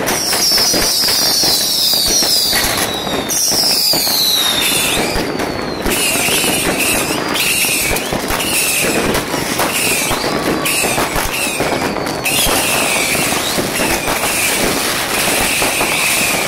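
Dense fireworks going off all around: continuous crackling and sharp bangs of firecrackers and rockets. Several falling whistles sound in the first few seconds, and short, evenly repeated whistles run through the rest.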